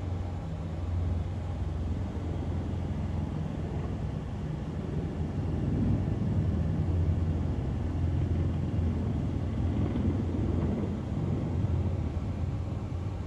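Two AH-64 Apache attack helicopters flying past, a steady low rotor rumble that grows louder from about five seconds in as one comes closer, then eases a little near the end.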